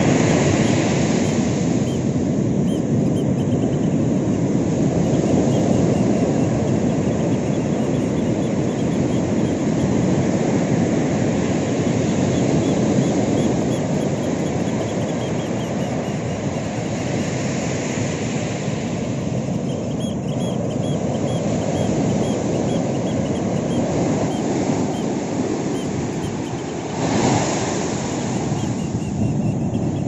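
Ocean waves crashing and washing up a sandy beach in a continuous surf noise that slowly swells and eases, with a brief louder surge near the end.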